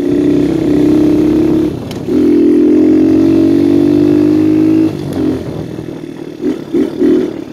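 Viper 150cc dirt bike's single-cylinder engine pulling hard under throttle, loud and steady, with a short break in the sound about two seconds in. About five seconds in the throttle is rolled off and the engine drops to a lower, uneven running.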